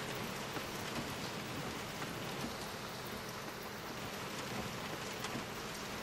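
Heavy rain falling steadily on a car and the street around it, with the odd sharper drop hitting.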